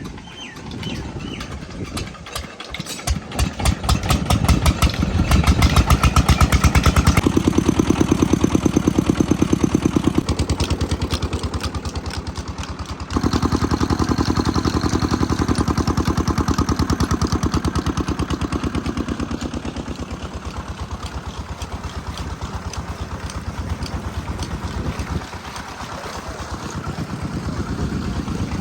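Diesel engine of a water pump starting up: its firing strokes come slowly at first and quicken over the first few seconds. It then runs steadily at a fast, regular beat, its loudness changing abruptly a few times.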